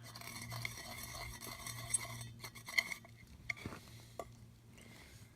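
Quiet scraping and stirring in a metal cooler tumbler, with a few small clinks, as the freshly ground whole cumin is handled. A steady low hum runs underneath.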